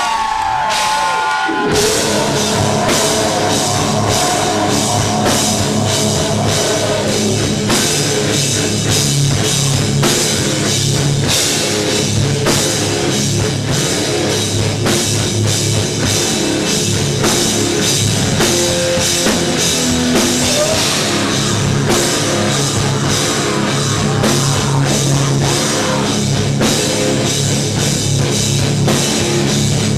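Heavy metal band playing live, with distorted guitars, bass and a drum kit. The full band comes in under two seconds in and keeps up a loud, steady beat.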